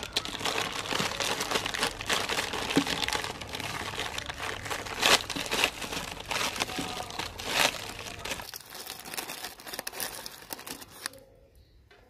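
Plastic biscuit packet crinkling as it is handled and torn open, with two louder rips about halfway through. The crinkling dies away in the last few seconds.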